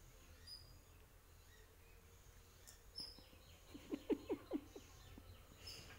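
A dog gives a quick run of four or five short yips, about four seconds in, as it goes for a toy dangled on a string. Faint bird chirps are heard now and then.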